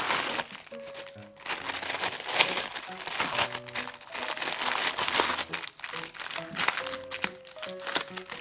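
Plastic packaging crinkling and crackling in bursts as a fidget toy set is unboxed, over background music of short, plain melodic notes.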